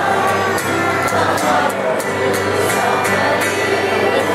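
Mixed choir of men and women singing a song together, with held notes, accompanied by acoustic guitar.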